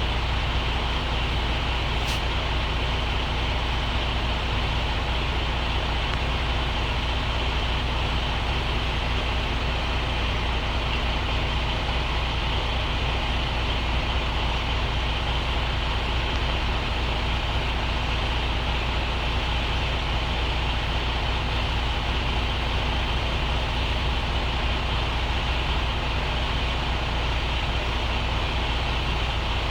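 Diesel truck engine running steadily, a low even hum that doesn't change in speed.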